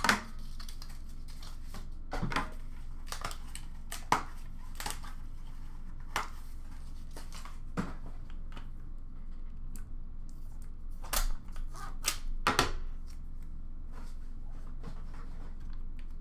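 Hands opening a trading-card box and handling its cardboard packaging and contents: scattered rustles, taps and clicks, with a louder flurry of handling about eleven to thirteen seconds in, over a low steady hum.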